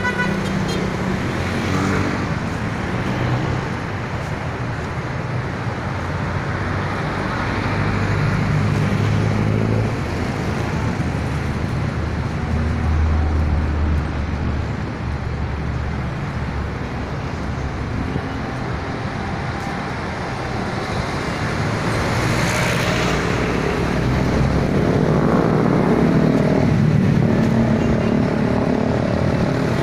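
Road traffic: car engines running and tyre noise, with low engine hum rising and falling as vehicles pass and a louder rush of a passing vehicle a little over twenty seconds in.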